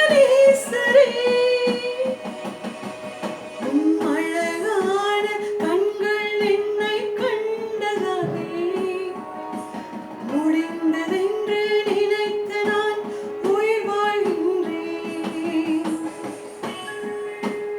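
Praise and worship song: a singer holding and sliding between sustained notes over guitar accompaniment with a steady, even rhythm.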